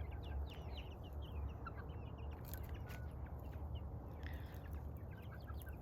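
A flock of chickens foraging, with scattered soft clucks and short high peeps throughout over a steady low rumble.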